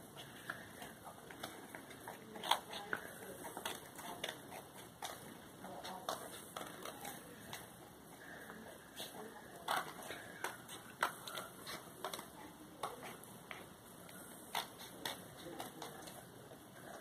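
Scissors cutting paper: irregular snips and clicks of the blades with light paper crackle, several snips sharper than the rest.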